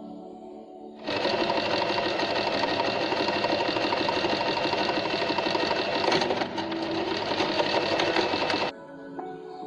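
Usha Janome Wonder Stitch Plus electric sewing machine starting about a second in, running steadily at speed as it stitches, then stopping abruptly near the end. Soft background music is heard before and after.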